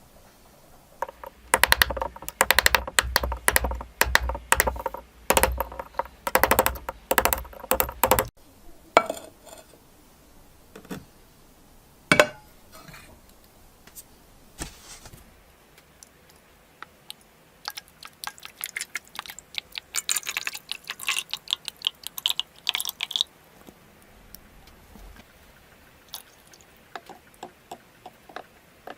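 Hand work on an old hammer: bursts of rapid scraping and clicking strokes with metal clatter and an occasional sharp knock. One dense run lasts several seconds, a single loud knock comes about twelve seconds in, and a second run of quicker, lighter strokes follows.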